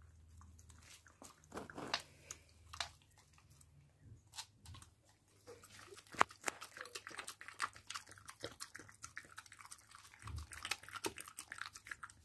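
Border Collie eating puréed carrot soup and chicken from a stainless-steel bowl: chewing, with many small irregular clicks, sparse at first and busier from about halfway.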